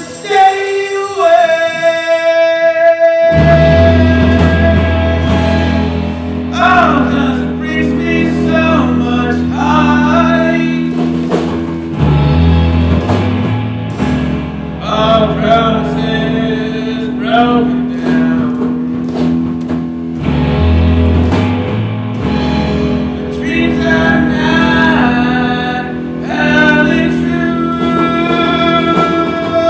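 A band playing a song live: a voice singing over guitar, with the low part of the music coming in about three seconds in.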